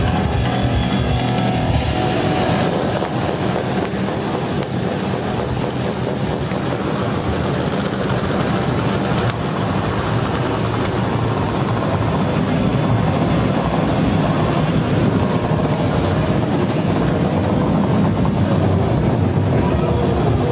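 A massed chorus of motorcycle engines running together in a dense, steady sound, with an electric guitar and a drum kit playing along.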